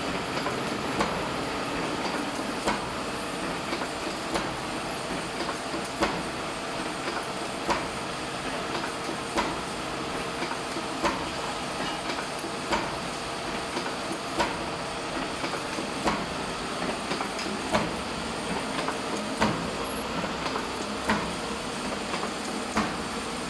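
Automatic 4 mm R-pin wire forming machine running: a steady mechanical hum with a sharp clack repeating about every 1.7 seconds.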